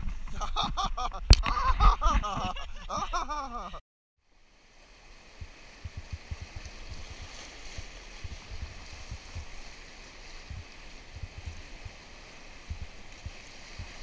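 For about the first four seconds, a voice and sharp knocks as the raft brushes through shoreline branches, ending in a sudden cut. After that, the steady rush of high-water whitewater around an oar raft running a rapid, with low thumps throughout.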